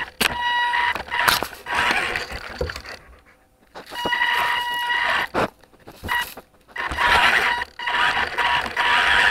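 Small electric motor and gears of a 1/24-scale remote-control truck whining in bursts as it drives and stops, picked up by a camera riding on the truck, with knocks and scrapes as it bumps about. The whine drops out about three seconds in and again about six seconds in.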